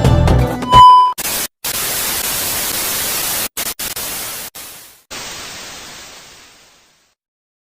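Music cuts off and a short, loud, high beep sounds, followed by hissing static like a TV with no signal. The static drops out several times, then fades to silence.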